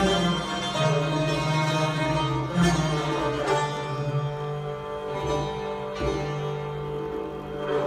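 Persian classical ensemble playing a pishdaramad in dastgah Homayoun: santur, tar, tarud and alto kamancheh together, with occasional low tombak strokes.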